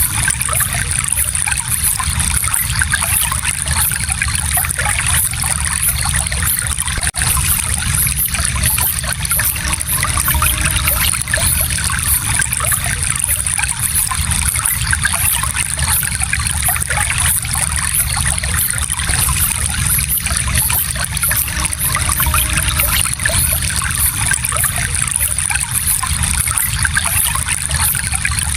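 Shallow stream flowing steadily, water trickling and splashing over rocks in an even, unbroken rush.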